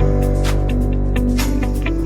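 Background music: a steady beat with held notes and plucked guitar.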